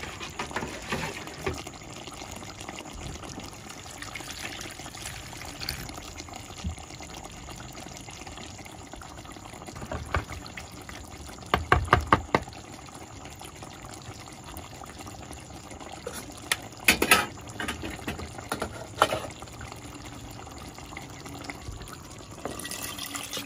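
Pot of curry chicken feet simmering with a steady low liquid sound, broken by a few clusters of sharp clicks and knocks, the loudest about halfway through. Near the end, a bowl of liquid with sliced peppers is poured into the pot.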